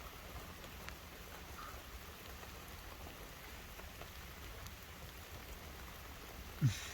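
Steady rain falling on the car, with faint scattered drop ticks. Just before the end comes a brief, louder low sound that falls in pitch.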